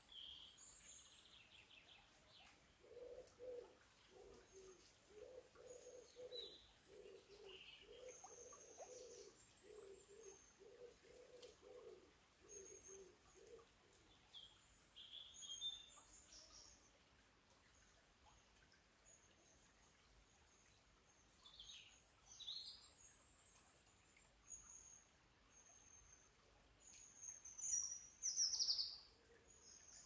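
Small birds chirping and singing in short, high phrases, with a dove cooing a long run of low, evenly repeated notes from a few seconds in until about halfway through. A louder burst of bird song comes near the end.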